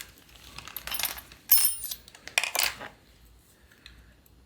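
Light metallic clinks and rattles of small steel parts, in three short clusters with the loudest about a second and a half in. The parts are tiny leaf springs for a Land Rover Series gearbox synchro, being handled on the bench.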